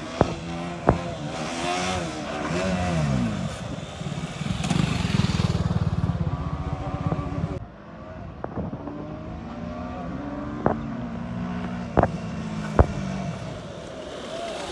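Motorcycle engine revving, its pitch rising and falling, with a few sharp clicks; the sound changes abruptly about halfway through.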